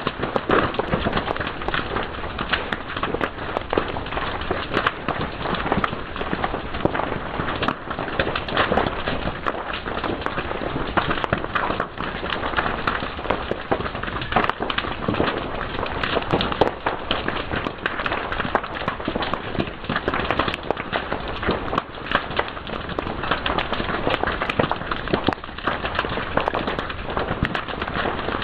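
Wood fire crackling and popping, a dense, continuous run of sharp snaps over a soft hiss.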